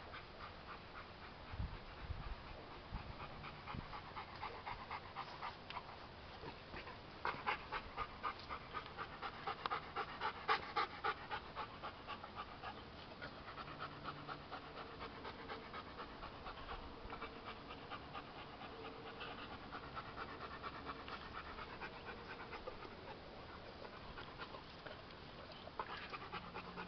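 Rottweiler panting with its mouth open, quick even breaths that are loudest for a few seconds about a quarter of the way in, then carry on more softly.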